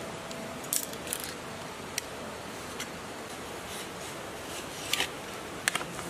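Utility knife and steel ruler handled on a wooden bench while cutting paper: a few light clicks and knocks, and a short scrape of the blade through the paper near the end.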